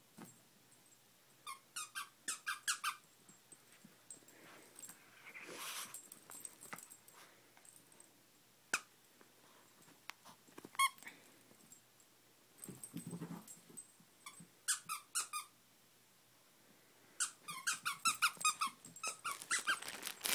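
Squeaker in a plush dog toy squeaked in several quick runs of short, high squeaks as a small dog bites and squeezes it, with soft rustling of the plush between runs.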